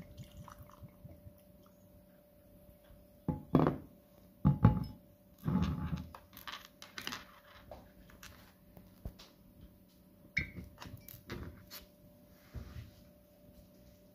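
Glass whisky bottle and glass tumbler handled on a table: several heavy thunks about three and a half to six seconds in as they are set down, then small clicks and taps as the cork stopper is handled. A faint steady hum runs underneath.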